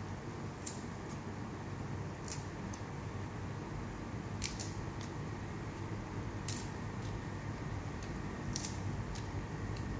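Covered cooking pot on a gas burner, heating water: a steady low rumble, with a handful of short, sharp clicks scattered irregularly through it.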